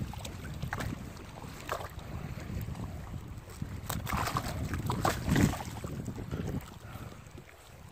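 Wind rumbling on the microphone, with several short splashes and sloshes of water.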